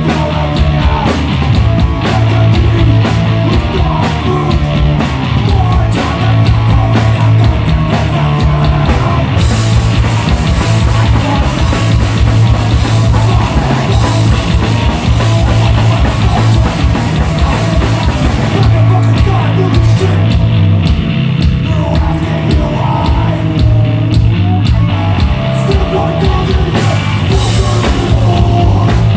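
Hardcore punk band playing live: distorted guitars, bass and fast drums at full volume, with shouted vocals.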